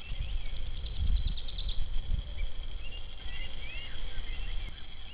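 Wind buffeting the microphone with an uneven low rumble, while birds call: a rapid series of short high notes about a second in, then several short whistled notes that rise and fall.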